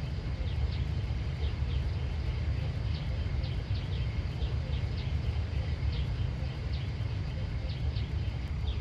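Countryside ambience: a steady low rumble of wind on the microphone, with short high chirps repeating irregularly, a few a second.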